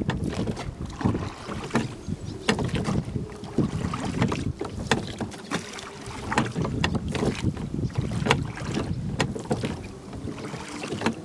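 Two oars working in the rowlocks of a wooden rowboat: repeated sharp knocks and clacks as the oars are pulled, with wind rumbling on the microphone.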